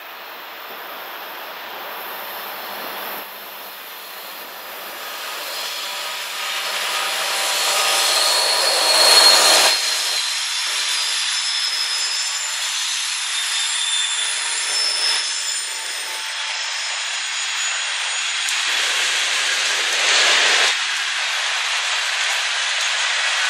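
Diesel-hauled freight train passing: the locomotives come on and go by, loudest about nine seconds in, then tank cars roll past with steady wheel-on-rail noise, thin high squeals and scattered clicks.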